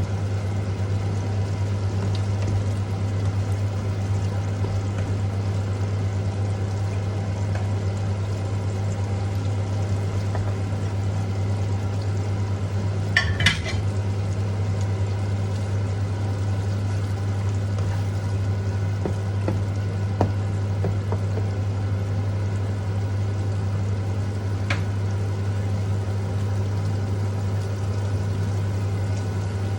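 Food cooking in a pan over a steady low hum, with a brief clatter of a utensil about halfway through and a couple of single clicks later.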